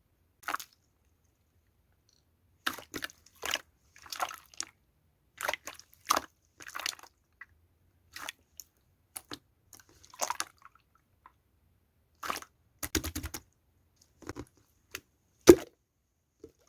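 Scattered short knocks, clinks and small liquid sounds of handling cups and barley tea, a dozen or so separate taps with a quick rattle of several clicks a little after the middle.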